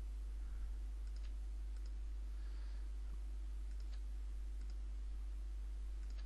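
A handful of faint, scattered computer mouse clicks over a steady low electrical hum.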